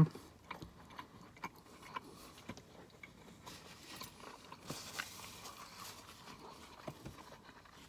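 A person chewing a mouthful of crispy bacon and buffalo chicken sandwich: faint, scattered mouth clicks and smacks.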